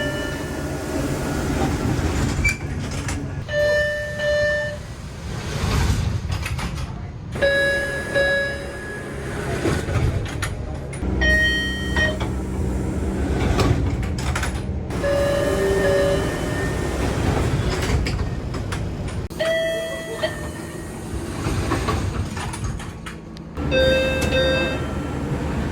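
MBTA Orange Line subway car interior door chimes, one short recorded clip after another with abrupt cuts about every four seconds: each a brief chime of one or two tones, one of them a falling two-note, over the steady rumble and hum of the train car.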